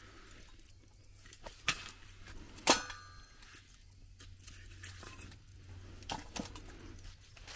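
Firewood being laid onto embers in a small folding steel camping grill: a few light knocks and clinks, with one loud knock about two and a half seconds in that leaves a short metallic ring, and more knocks near the end as a second log goes in.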